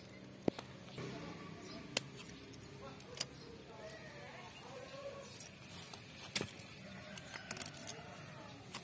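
Small scissors snipping plant stems: about five sharp, short snips at irregular intervals a second or more apart, over faint background sounds.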